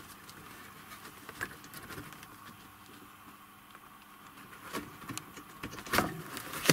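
Faint scattered taps and scratches, with a couple of sharper knocks near the end.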